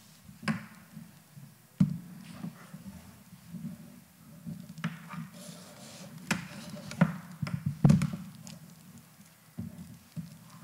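Scattered knocks and taps from a laptop being handled on a table close to a desk microphone, loudest about two seconds in and again near eight seconds, over a steady low hum.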